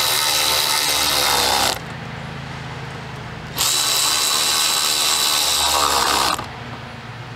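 Cordless power driver with a socket extension running down bolts on a convertible top frame, in two spells: the first stops just under two seconds in, the second starts about a second and a half later and runs for nearly three seconds, each with a steady high whine.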